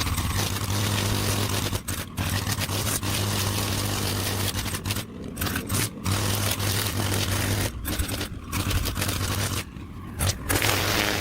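Small petrol engine of lawn-care equipment running steadily at high speed over a constant hiss of cutting, broken by several brief dropouts.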